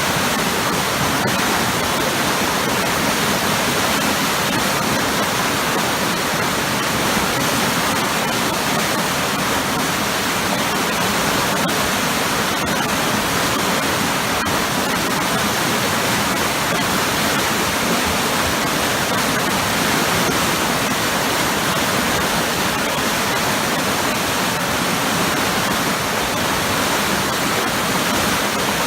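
Waterfall pouring into a powerful, churning pool: a loud, steady rush of water that doesn't change.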